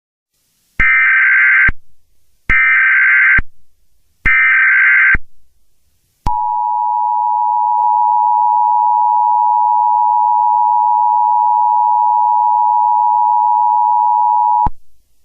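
Emergency Alert System tones: three short screeching SAME header data bursts, each under a second and spaced under a second apart, then the steady two-tone EAS attention signal held for about eight seconds before cutting off.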